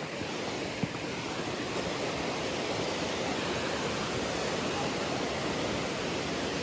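Steady rush of a creek waterfall, an even wash of falling water with no letup. One small click under a second in.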